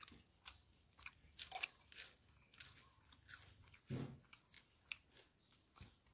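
Faint crackling and crunching of grilled eel, its crisp skin and small bones being torn apart by hand and chewed, with a soft thump about four seconds in.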